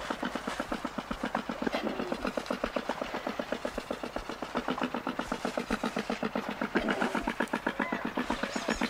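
Andean condor giving a long, rapid series of low clucking pulses, about eight or nine a second, with short higher bird calls near the end.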